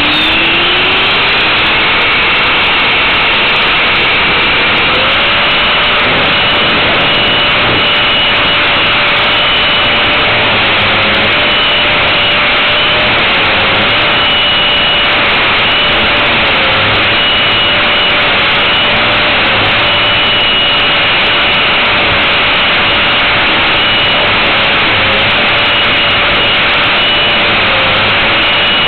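Electric 450 Pro RC helicopter heard from its own onboard camera: the motor and rotor whine climbs in pitch over the first few seconds as the rotor spools up for lift-off. It then holds a steady high whine with small dips in pitch, over a loud constant rush.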